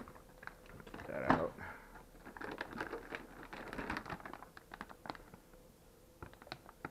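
Clear plastic parts bags crinkling and rustling as they are handled, with many light clicks and taps of hard plastic parts inside them. The loudest rustle comes about a second in. A faint steady hum runs underneath.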